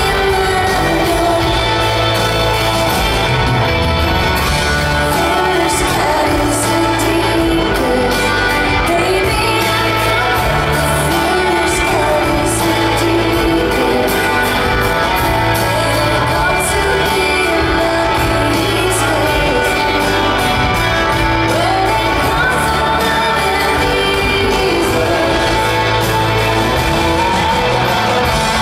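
Live rock band playing a mid-tempo song on acoustic and electric guitars, keyboards and drums, with a woman singing lead.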